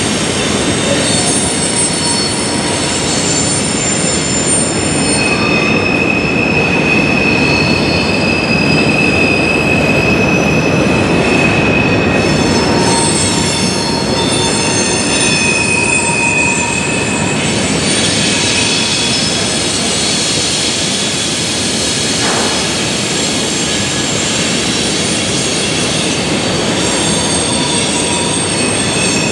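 Freight train of covered hoppers and tank cars rolling past, its wheels squealing in several high, shifting tones over a steady rolling rumble.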